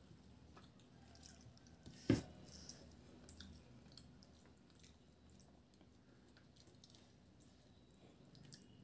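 Faint chewing and wet squishing of rice and fish being mixed and eaten by hand off a plate, with small scattered clicks and one sharper knock about two seconds in.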